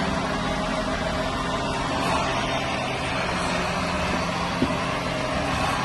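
Tractor engine running steadily, with a single short knock a little over halfway through.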